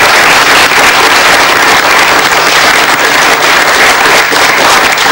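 Studio audience applauding, a dense, even clapping held at a steady level.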